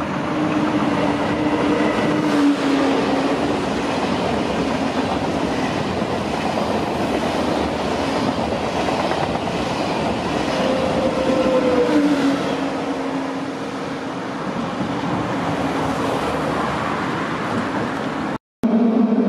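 TGV Atlantique high-speed trainset passing close by: a steady rush of wheels on rail, with a humming tone that drops in pitch twice. The sound breaks off for a moment near the end.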